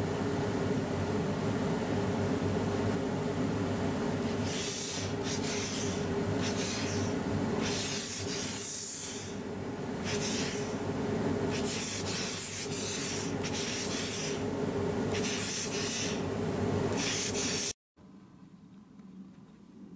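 Steam iron pressing a fabric seam: a steady hum under about a dozen short hissing bursts, which cuts off suddenly near the end.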